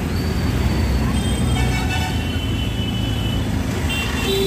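Dense city traffic at close range: many small engines from motorbikes, scooters and auto-rickshaws running in a steady rumble. Vehicle horns sound for about two seconds in the middle and again near the end.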